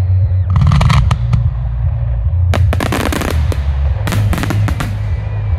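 Aerial fireworks shells bursting in three clusters of rapid bangs and crackles, about half a second, two and a half seconds and four seconds in, over a steady low rumble.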